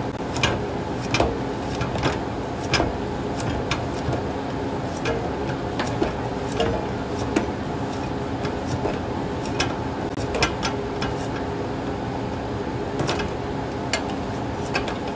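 Manual vegetable slicer cutting a cucumber: a run of sharp clicks, roughly one a second, as the handle is worked and the blade goes through, over a steady background hum.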